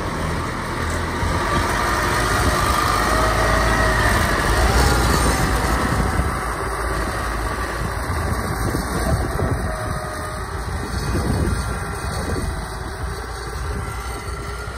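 Engine of a tracked rice carrier running under way as it drives past and away over the field, its pitch wavering, loudest a few seconds in and easing slightly as it moves off.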